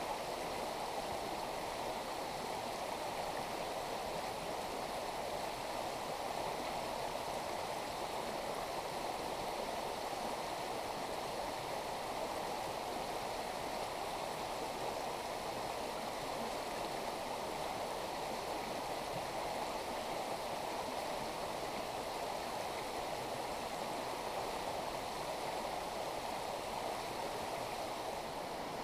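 Small mountain stream flowing steadily over a rocky bed, a constant even rush of water.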